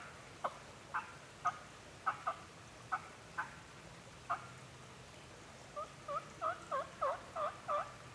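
Turkey calling: about eight short, sharp clucks spaced roughly half a second apart, a pause, then a quick run of seven yelps near the end.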